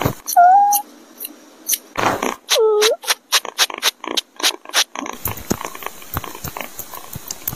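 Kitten mewing twice: a short high mew, then a longer mew falling in pitch about two and a half seconds in. It is followed by a run of sharp clicks, about four a second.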